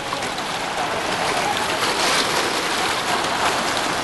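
Water splashing and churning as open-water swimmers thrash into the sea: a steady noisy rush, a little louder about halfway through.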